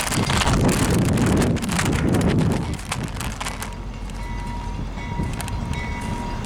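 Train rolling past, its wheels clattering over the rail joints, with wind buffeting the microphone; loudest in the first two or three seconds, then softer, with a faint steady ringing tone coming in about halfway.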